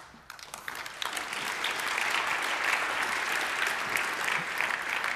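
Audience applauding, swelling over the first second or two and dying away near the end.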